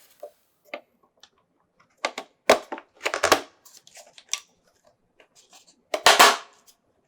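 Sharp plastic clicks and knocks as the GoPro Karma drone's landing gear is worked and pressed back onto the body. A cluster of clicks comes about two to three and a half seconds in, and a louder, longer snap about six seconds in.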